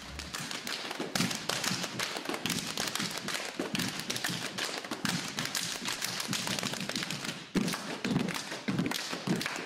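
Folk dancers' feet stamping and tapping on a hard floor during dance practice: a dense, quick run of taps and thuds from a line of dancers stepping together, with the loudest hits in the last two seconds.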